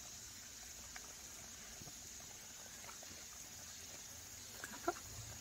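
Dog licking at a cherry tomato held in fingers: a few faint wet clicks of the tongue, the sharpest cluster near the end, over a steady high hum of insects.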